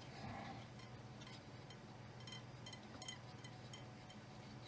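Near silence with a low steady hum, broken by faint, scattered small clicks and ticks.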